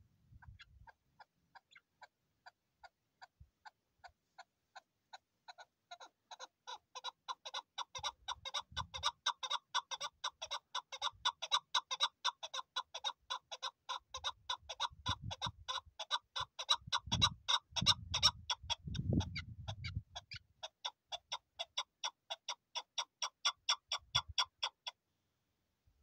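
Chukar partridge calling: a long series of short clucking notes, slow at first, then quickening to about five or six a second and running on steadily until it stops near the end. A few low rumbles come through in the middle.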